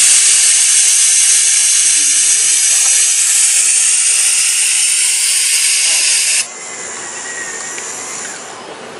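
Steady loud hiss of compressed air from the robot arm's vacuum suction gripper while it holds a wooden block, cutting off abruptly about six and a half seconds in as the block is released, leaving a fainter hiss.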